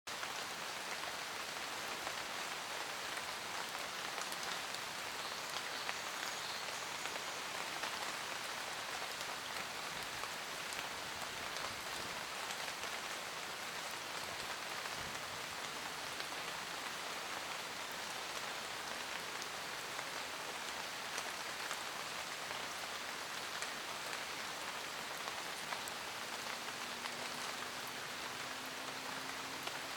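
Light rain falling on forest leaves: a steady hiss of many small drops, with scattered individual drip ticks.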